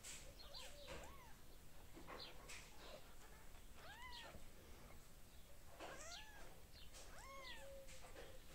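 Newborn kittens mewing: several faint, short, high mews a second or two apart, each rising then falling in pitch.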